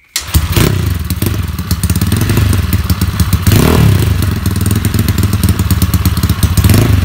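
Bored-up 200cc Yamaha Mio single-cylinder four-stroke scooter engine running loud through an open aftermarket racing exhaust, rapid firing pulses, with the throttle blipped up a few times. The engine is being set up for racing.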